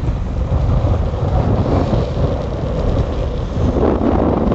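Wind buffeting the microphone, a loud irregular low rumble, with gusts swelling about halfway through and again near the end.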